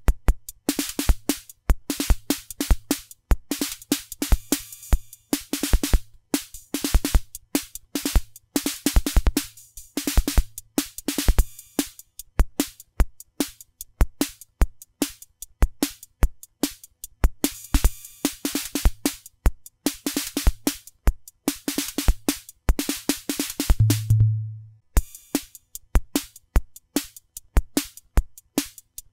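A drum machine plays a steady beat of bass drum, snare-like hits and bright, hissing cymbal and hi-hat strikes. About 24 seconds in, a short low tone sounds for about a second.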